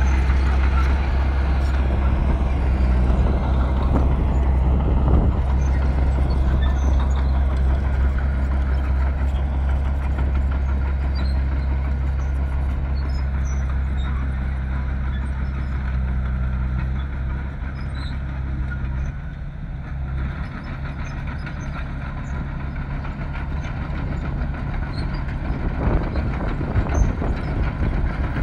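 Bulldozer's heavy diesel engine running steadily. It eases off about two-thirds of the way through and picks up again near the end.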